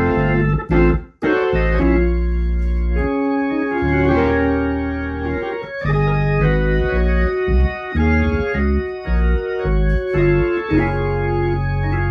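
Hammond organ played through a Leslie speaker: a series of held chords with strong bass notes, changing every second or so, with one short break about a second in. It is a test playing with a tighter-fitting replacement 12AU7 tube in the Leslie amplifier, after a loose tube had caused static and tone dropouts.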